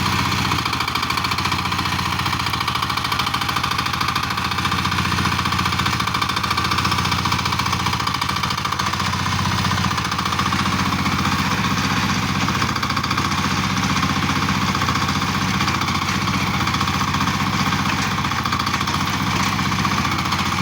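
PC08 mini excavator's small engine running steadily at an even speed, with no distinct knocks or changes.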